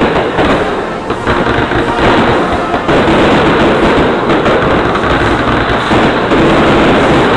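Loud aerial fireworks shells bursting overhead in quick succession, a dense barrage of bangs and crackling with no break.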